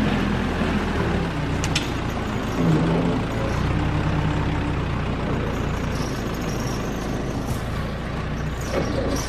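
Caterpillar backhoe loader's diesel engine running steadily under work, its pitch stepping up and down as it works, with a few short knocks.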